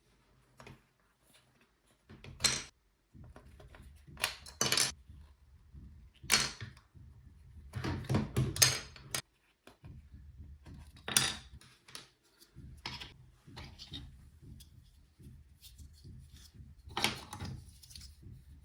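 Irregular plastic clicks and scrapes of keycaps being handled on an Amiga keyboard, one every second or two with a quick cluster about halfway through, over a faint low rumble.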